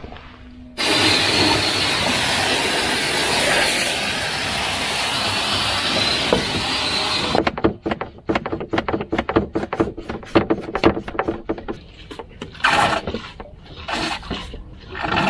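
A loud, steady rushing hiss that starts and stops abruptly and lasts about six and a half seconds. It is followed by a quick, irregular run of metallic clinks and rattles from anchor chain links being handled in the anchor locker.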